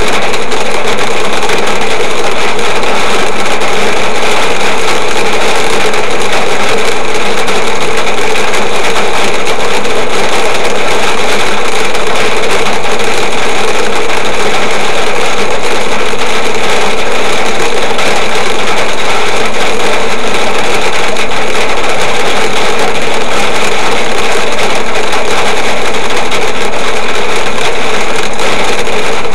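Hail and torrential rain drumming on a car's roof and windscreen, heard from inside the car: a loud, dense, unbroken clatter.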